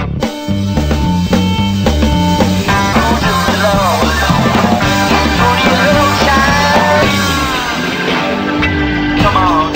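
Rock-style backing music: a bass line stepping through short, even notes, joined about three seconds in by a higher melody of bending, sliding notes.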